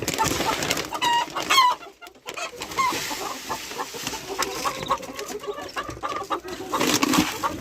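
Hens clucking in a poultry house, with short high calls around the first few seconds, over steady rustling and clicking.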